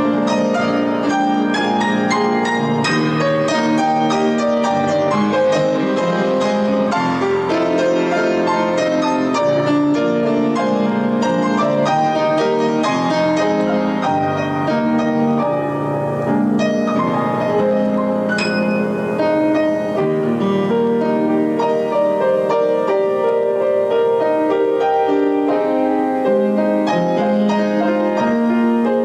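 Instrumental closing music, a piano playing a steady, flowing passage of notes.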